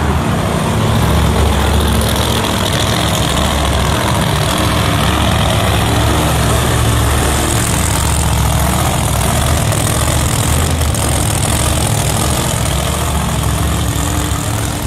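Drag-race car's engine idling steadily as the car rolls slowly toward the starting line.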